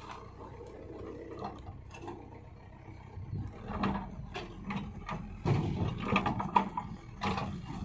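Caterpillar backhoe loader working its backhoe bucket against an uprooted tree trunk: a low engine hum, then from about halfway a dense run of clicks and cracks, loudest near the end.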